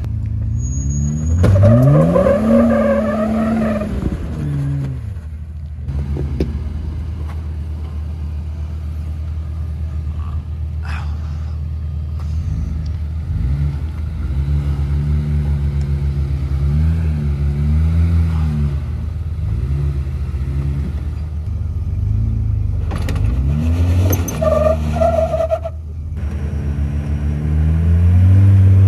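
Jeep Wrangler JL engine revving under load as it crawls up a rock ledge. There is a rev that rises and falls about two seconds in, uneven throttle through the middle, and a climbing rev near the end.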